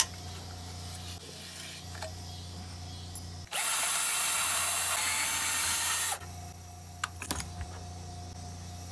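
Cordless drill with a socket running steadily for about two and a half seconds, from about three and a half seconds in, backing a muffler bolt out of a push-mower engine. A few light metal clicks come before and after it.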